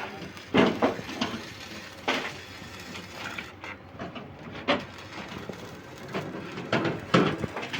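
Irregular knocks and scrapes of hand work on a building site, about six or seven separate strokes over a steady background noise, loudest about half a second in and near the end.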